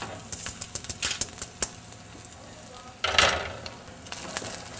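Frying in hot oil in a pan: a soft sizzle with many light clicks and scrapes of a utensil. About three seconds in comes a louder rush of sizzling as soaked glutinous rice goes into the garlic and oil.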